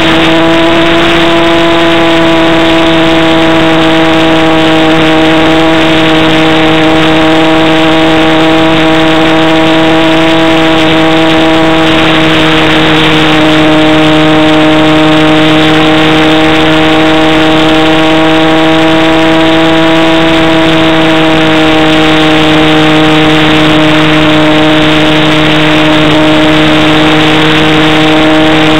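Motor and propeller of a radio-controlled model plane running steadily in flight, picked up close and loud by the camera carried on the plane, with a constant rushing of air. The pitch holds nearly level, sagging slightly now and then as the throttle eases.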